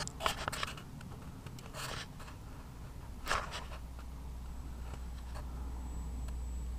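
Handling noise from the camera: a few short rubs and scrapes against the microphone, loudest just after the start and again about three seconds in, over a steady low rumble. A faint, thin high whine comes in near the end.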